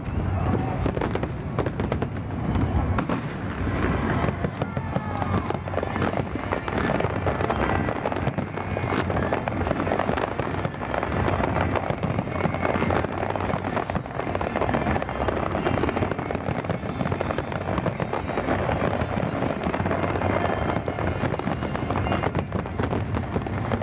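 Aerial fireworks display: a dense, continuous barrage of shell bursts popping and crackling without a break.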